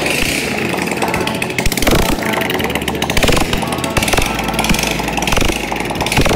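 Small motorcycle engine running, with a fast, even pulsing and its level rising and falling.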